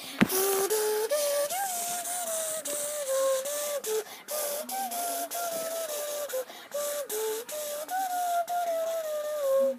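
A simple tune carried by a single melody line of held notes that step and slide between pitches, with faint scattered clicks.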